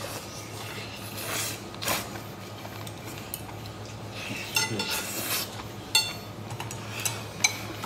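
Eating sounds from soy-braised pork bone: scattered clicks and clinks of chopsticks against the bone and plate, with mouth noises of biting and sucking the soft meat off the bone.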